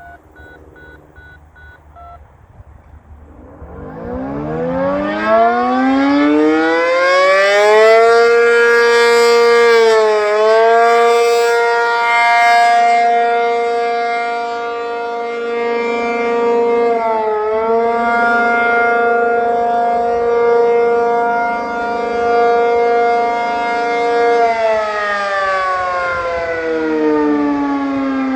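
Radio activation tones beep in short bursts for about the first two seconds. Then the ACA P-50 tornado siren winds up from about three seconds in and holds the steady alert tone of its monthly test, its pitch dipping briefly twice. It begins to wind down near the end.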